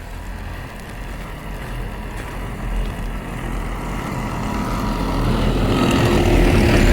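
A road vehicle approaching along the street, its engine and tyre noise growing steadily louder and closest near the end.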